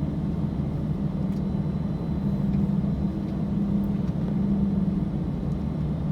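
A car being driven, heard from inside the cabin: steady low road and engine hum.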